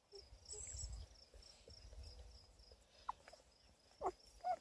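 Week-old beagle puppies giving a few short, high squeaks, one about three seconds in and two near the end, after a low rumble in the first couple of seconds.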